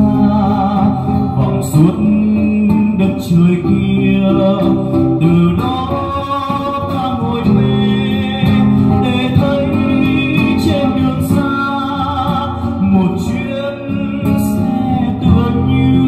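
Live acoustic ballad: two acoustic guitars playing together, accompanying a male singer's voice through a microphone.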